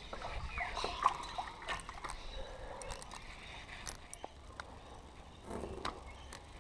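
Faint handling noises on a sit-on kayak: scattered small clicks and knocks from the rod, reel and a small caught bream being brought in and unhooked.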